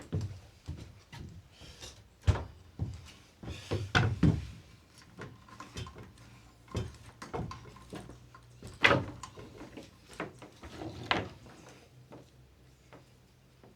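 Irregular knocks, clunks and thuds of things being handled, folded and set down in a small wooden room, the loudest about 2, 4, 9 and 11 seconds in.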